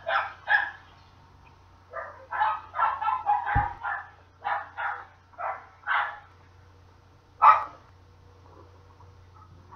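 A dog barking repeatedly: about a dozen short barks in irregular runs, the loudest one near the end. A brief low thump comes about midway.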